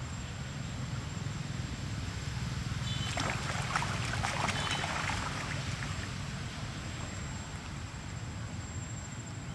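Macaques splashing as two of them wrestle in a pond: a flurry of splashes between about three and six seconds in, with a couple of short high squeals among them. A steady low rumble runs underneath.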